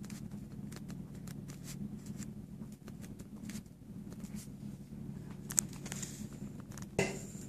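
Quiet room with a steady low hum and faint scattered clicks and rustles from the handheld camera and paper being handled, with a sharper click about five and a half seconds in and another near seven.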